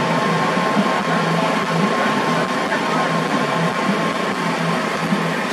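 Enduro dirt bike engine working under load as the bike climbs a muddy, rocky creek gully, its revs pulsing up and down unevenly.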